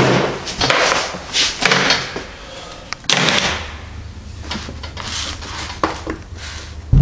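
A black hard-shell briefcase is set down on a table and opened: a knock as it lands, then a few short scrapes and clicks as it is handled, its latches are worked and the lid is lifted.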